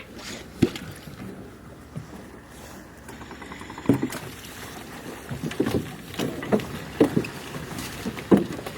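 Scattered knocks and thumps in a small boat, about eight at uneven intervals and mostly in the second half, over a steady wash of water and wind noise.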